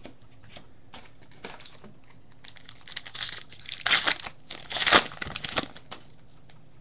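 Wrapper of a baseball trading card pack being torn open and crinkled, faint rustling at first, then a flurry of loud crackling tears in the second half.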